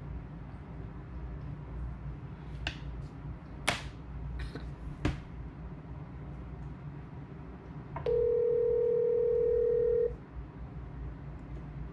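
Four sharp clicks, then a single two-second ringback tone as an outgoing phone call rings the other line.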